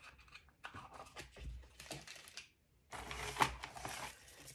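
Small clicks, taps and rustles of jewelry packaging being handled at a table, with a louder crinkling of a plastic bag from about three seconds in.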